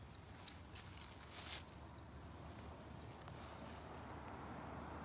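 An insect chirping steadily in short, evenly spaced high pulses, about four a second, with a brief rustle or scrape about a second and a half in.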